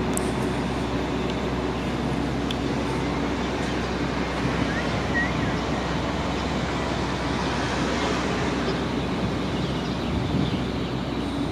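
Steady city background noise: an even rumble and hum of distant traffic.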